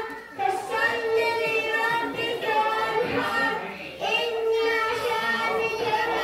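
Young students chanting a sura of the Quran in melodic recitation, their high children's voices holding long notes, with short breaks between phrases near the start and about four seconds in.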